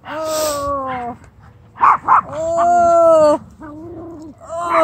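A bulldog on its back, having its belly rubbed, making long drawn-out whining vocalisations: three of them, the first sliding down in pitch, the second the longest and loudest. A couple of short sharp sounds come about two seconds in.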